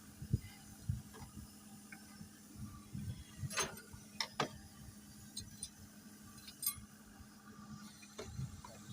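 Metal clinks and sharp clicks of hand tools and parts being handled in mechanical repair work, with scattered dull knocks over a steady low hum.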